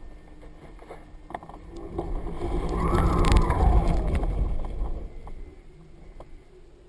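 Wind rushing over a GoPro mounted on the center strut of a flying leading-edge-inflatable tube kite. It swells over about three seconds as the kite swings through a crosswind turn, then fades, with a tone sliding down in pitch at its loudest and a few light ticks.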